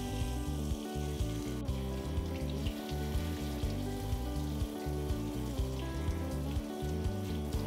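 Hiss of water spraying from a handheld shower head onto a wet dog's coat, under background music with a steady beat.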